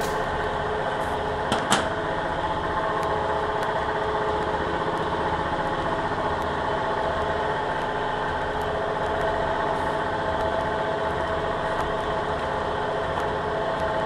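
Steady drone of running boiler-room machinery, several fixed tones over a low pulsing hum. Two sharp clinks about a second and a half to two seconds in.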